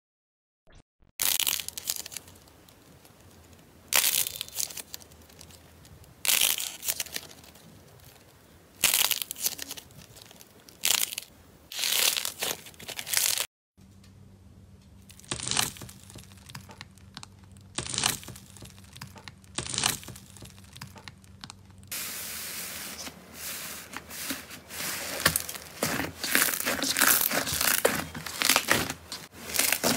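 Hand-played slime sounds in three parts: loud bursts of crackling every two seconds or so as black-coated slime balls are squeezed; after about 14 s, hands pressing into a box of small foam beads over a faint steady hum; from about 22 s, a dense run of crackling and tearing as fluffy blue slime is kneaded and stretched.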